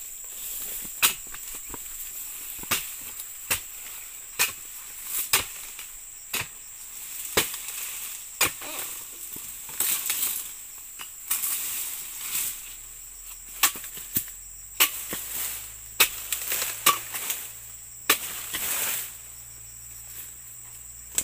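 Steel oil palm harvesting chisel (dodos) on a long ironwood pole chopping into the bases of oil palm fronds during pruning: sharp cracking strikes at irregular intervals, about one a second. Insects shrill steadily high in the background.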